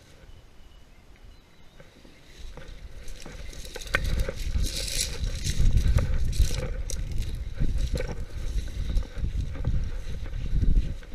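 Someone walking through tall dry grass and weeds, the stalks rustling and crackling, with wind rumbling on the microphone. It starts faint and gets loud about four seconds in.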